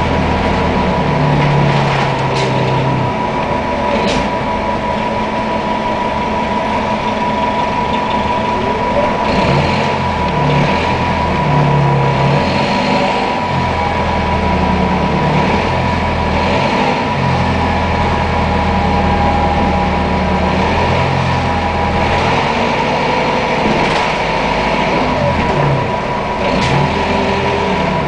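The Detroit Diesel Series 50 inline-four diesel of a 1997 New Flyer D60 articulated transit bus running, its low note stepping up and down as the bus pulls away, shifts and slows. A steady high whine runs alongside, with a few brief clicks and rattles.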